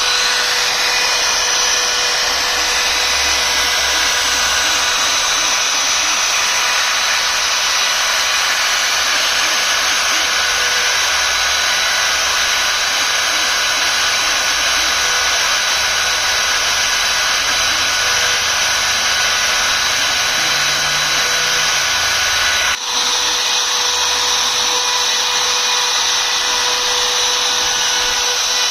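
CNC router spindle running steadily while engraving, a steady high whine over a loud hiss, with a momentary dropout a little before the end.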